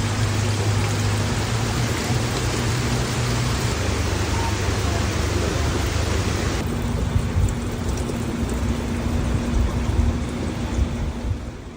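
Heavy rain pouring steadily, with a low hum underneath. The sound shifts slightly about two-thirds of the way through.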